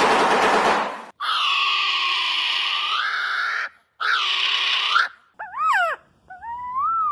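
A run of strange bird calls. A harsh rasping sound lasts about a second, then come two long nasal calls rich in overtones. After them a clear whistle glides up and down, and a long whistled note follows.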